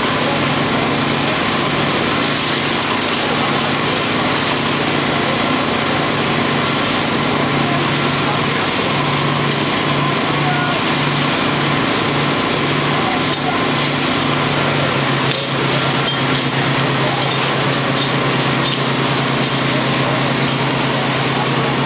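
Fire engine pump engine running with a steady hum under a loud, even rushing of water jets from the hoses. The engine note pulses for a few seconds in the middle, then settles lower about fifteen seconds in.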